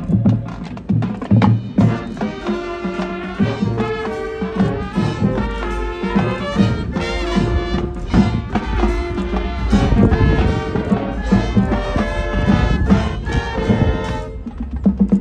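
High school marching band playing: brass carrying a melody of held notes over drums and front-ensemble percussion, with heavy rhythmic drum hits in the first couple of seconds.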